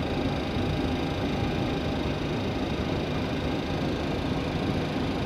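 Steady rumble and hiss of the flight deck of a Boeing 737 taxiing at low speed with its engines at idle, with a faint steady high tone over it.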